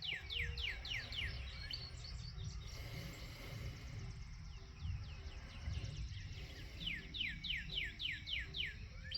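A bird singing: a run of quick, falling whistled notes, about three a second, heard at the start and again about two-thirds of the way in, over a low steady background rumble.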